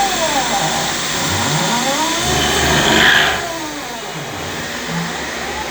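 Four-axis CNC milling machine's axis drive motors whining, their pitch repeatedly rising and falling as the axes speed up and slow down, with a brief louder, brighter burst about three seconds in.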